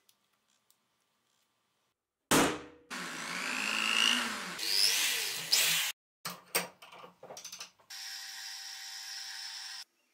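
Electric drill boring a hole in a brass rod clamped in a vise. It is heard in several bursts that start and stop abruptly, the last a steady run of about two seconds.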